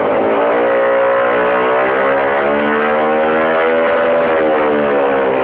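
Gilera Runner scooter engine revving hard through a MIVV exhaust with the silencer insert removed. The engine is held at high revs with its pitch climbing slowly, then easing off slightly near the end.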